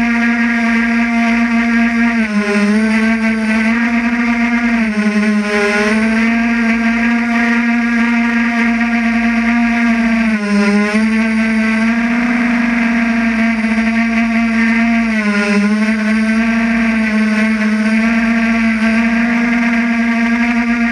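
Quadcopter drone's motors and propellers whining steadily, heard close up from its onboard camera. The pitch dips briefly four times, about two, five, ten and fifteen seconds in.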